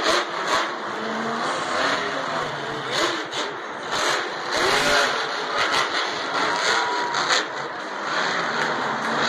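Grave Digger monster truck's supercharged V8 engine revving and accelerating across the dirt, its pitch rising and falling repeatedly, with a few sharp knocks mixed in.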